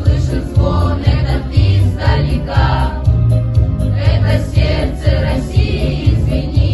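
Children's choir singing over a backing track with a steady beat.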